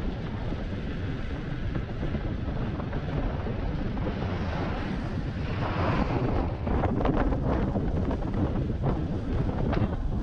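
Wind buffeting the microphone of a rider moving fast on an electric unicycle, a steady low rumble of wind noise. About halfway through a stronger gust rushes in, followed by scattered knocks and rustles.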